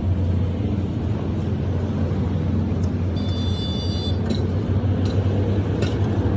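Steady low mechanical hum with a noisy rumble, a brief high-pitched squeal about three seconds in, and a few light clicks.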